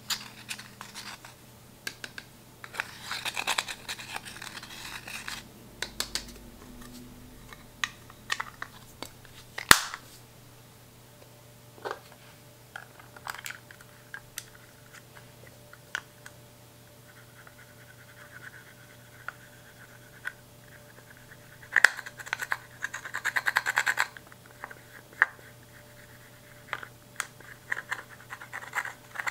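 Pressed eyeshadow being scraped and chipped out of its compacts and pans with a small metal tool: scratchy, crumbly scraping in a few clusters, with scattered ticks of metal on the hard pans. The loudest sound is one sharp click about ten seconds in.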